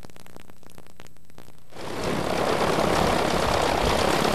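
Propeller engine of a light bush plane running steadily, fading in about two seconds in.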